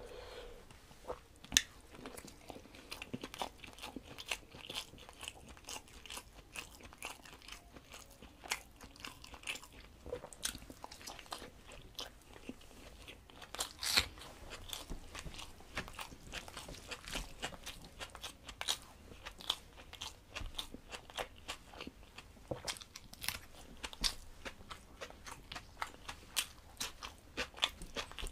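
Close-miked eating of rice with dal and curry by hand: steady chewing with many small mouth clicks and a few louder crunches, the loudest about a second and a half in and near the middle.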